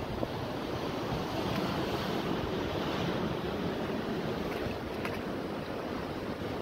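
Sea surf washing over rocks, a steady rushing noise, with wind buffeting the microphone.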